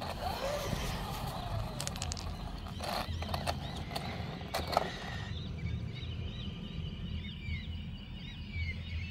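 Outdoor rustling noise with a few sharp clicks for about the first five seconds. Then small birds chirping in short repeated calls for the rest.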